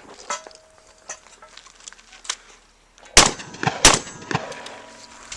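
Two shotgun shots about two-thirds of a second apart, a little over three seconds in, followed by smaller sharp knocks. Fainter clicks and knocks come before them.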